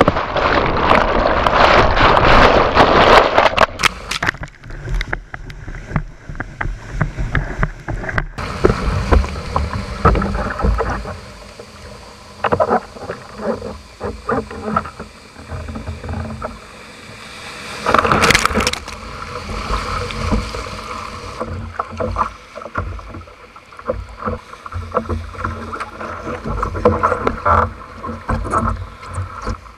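Surf and whitewater rushing and sloshing around a small capsized skiff, picked up by a boat-mounted action camera, with irregular knocks of water against it. It is loud for the first few seconds, quieter and choppy after, with another loud rush about 18 seconds in.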